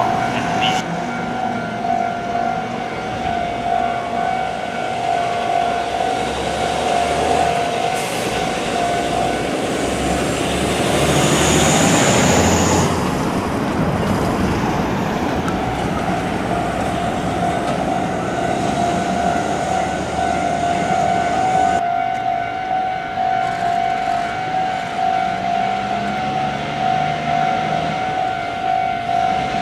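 Level-crossing warning bell ringing in a steady pulsing tone, while a heavy double-trailer haul truck passes with engine rumble and tyre noise, loudest about twelve seconds in.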